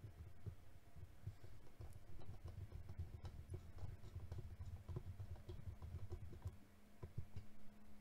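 Faint clicking and ticking of a precision screwdriver turning small screws into a laptop's metal shield plate, over a low rumble of hand handling; it stops about six and a half seconds in, with a few last clicks after.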